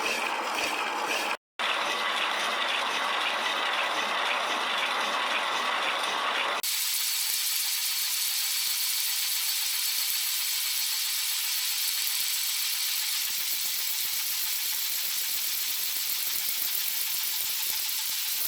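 Slitting saw blade on a milling machine cutting through metal bar stock: a steady, even mechanical chatter of the teeth working through the cut. There is a brief gap about a second and a half in, and the sound turns thinner and higher about six seconds later.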